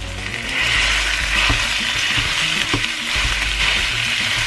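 Minced beef and onions sizzling in a stainless steel frying pan while a wooden spatula stirs and breaks up the meat; the hiss grows louder about half a second in, with two light knocks of the spatula on the pan.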